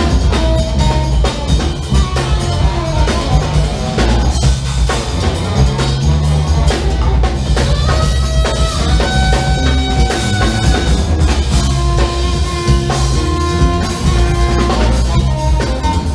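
Live funk band playing an instrumental passage: a drum-kit beat and electric bass groove under guitar, with long held notes from a lead instrument such as the tenor saxophone.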